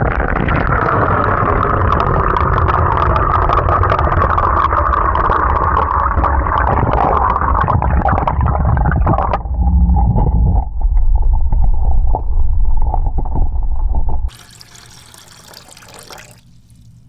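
Water running and gushing, changing character about nine seconds in and cutting off suddenly near the end.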